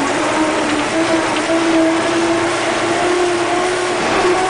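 Earthmoving scraper's diesel engine working hard as the machine drives across the dirt, heard from inside the cab, with a steady whine that climbs slowly in pitch as it gathers speed.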